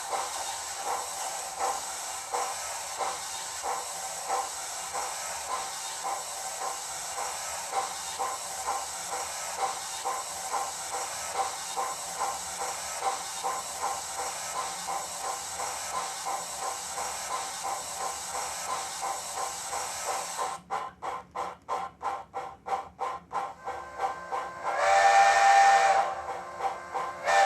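Model steam locomotive sound from a TCS WOWSound decoder's tender speaker, pulling away from a standstill: steady exhaust chuffs under a continuous cylinder-cock hiss. About twenty seconds in the hiss stops and the chuffs go on alone with short gaps, and near the end a steam whistle blows loudly for about a second and a half.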